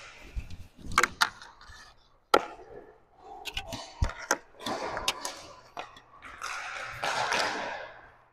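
Inline hockey play: scattered sharp clacks of sticks striking the puck and the floor, over the rolling and scraping of inline skate wheels on a concrete rink.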